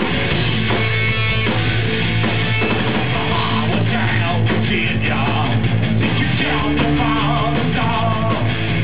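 Punk rock band playing live: distorted electric guitars, bass and drum kit, with a man singing, loud and dense.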